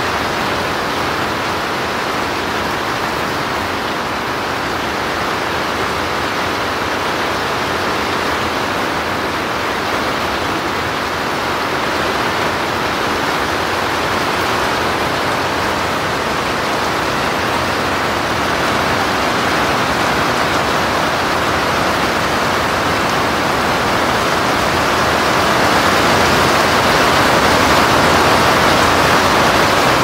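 Steady, even rushing noise with no distinct events, growing a little louder over the last few seconds.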